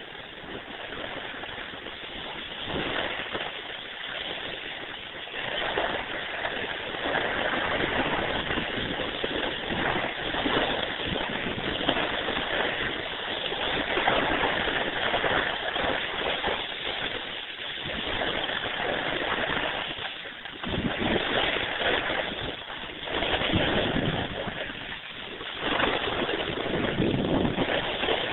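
Board edges scraping and hissing over packed snow during a downhill run, with wind buffeting the microphone. The noise surges and fades unevenly, strongest in several swells in the last third.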